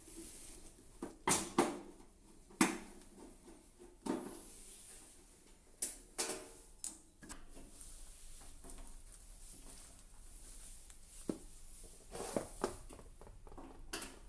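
Scattered clicks and knocks from dismantling an electric convector heater: screws being backed out of its plastic bottom trim with a hand screwdriver and the plastic casing being handled. About ten sharp clicks come at uneven intervals.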